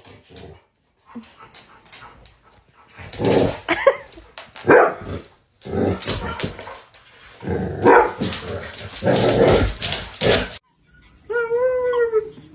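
A dog barking in a series of loud bursts, then a short, wavering whine near the end.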